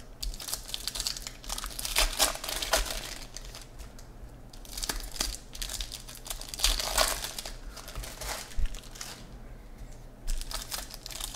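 Trading card pack wrappers crinkling and tearing as packs are ripped open by hand, in irregular bursts, with cards being handled between them.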